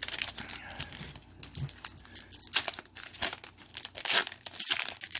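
Foil Pokémon booster pack wrapper crinkling and tearing as it is opened, in a quick run of irregular crackles.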